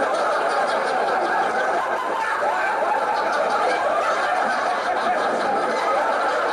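Sitcom laugh track: a crowd of people chuckling and laughing together without a break.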